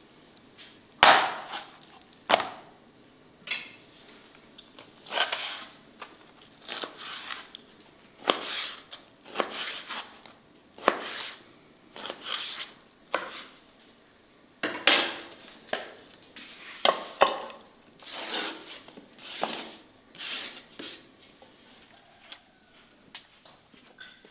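Knife cutting raw meat on a wooden board: irregular knocks and short scrapes of the blade against the board, about one a second, stopping near the end.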